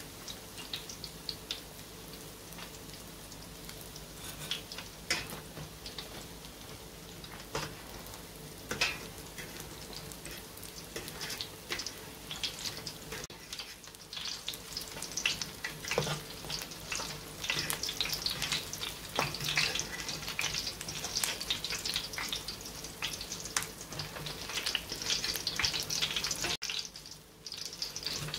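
Stuffed qatayef pancakes frying in hot oil in a pan: a steady sizzle with many small crackling pops, getting busier and louder about two-thirds of the way through.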